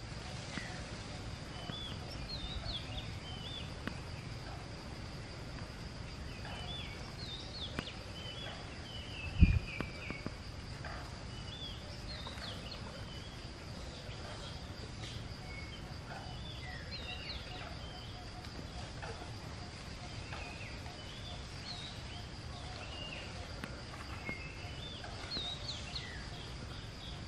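Outdoor animal calls: many short, high, chirping calls come and go throughout over a steady high whine. A single short, low thump about nine and a half seconds in is the loudest sound.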